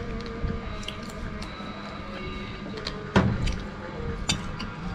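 Eating noises at a meal of salted crab and rice: chewing with scattered small clicks, and a sharper knock about three seconds in, over a steady background hum.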